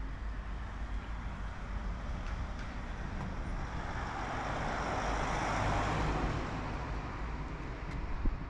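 A car driving past on the road, its tyre and engine noise swelling and fading about halfway through, over a steady low traffic rumble. A sharp click near the end.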